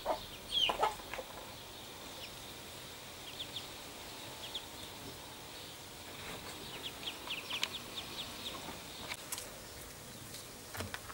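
Muscovy ducklings peeping: short, high chirps in scattered clusters, with two louder calls sliding down in pitch in the first second.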